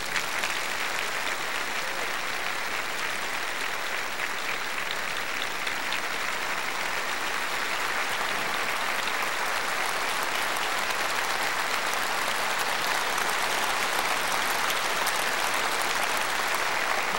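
Large audience applauding steadily, a dense unbroken clapping that starts as the song ends and keeps up without fading.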